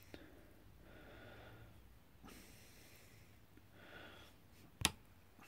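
Faint breathing through the nose, two soft breaths a few seconds apart, and one sharp click a little before the end.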